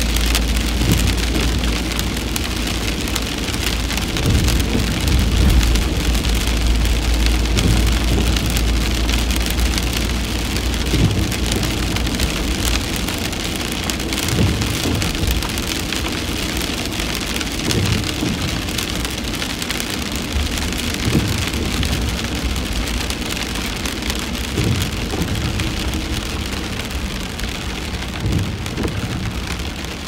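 Steady rain falling on a car's roof and windshield, heard from inside the cabin, over the low rumble of the idling engine, which eases about halfway through. Soft thumps come every three to four seconds in the second half.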